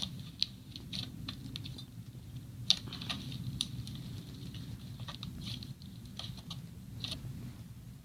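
Slime being pressed and poked, giving irregular short sticky clicks and small crackles over a low steady hum.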